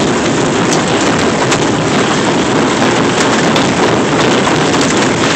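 Heavy hailstorm: hail and rain pelting down in a dense, unbroken clatter of countless small impacts.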